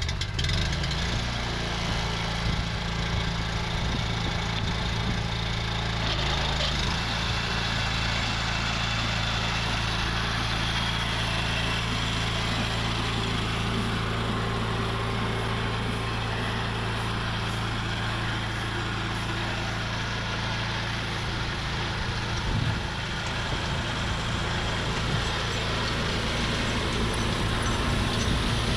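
Small Honda gasoline engine on a horse-drawn forecart catching right at the start and then running steadily at constant speed, powering the hay tedder.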